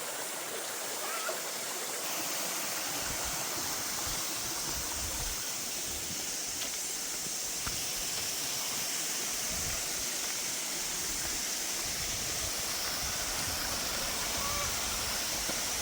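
Steady rushing of flowing water from a stream and waterfall, growing slightly louder, with irregular low rumbles underneath.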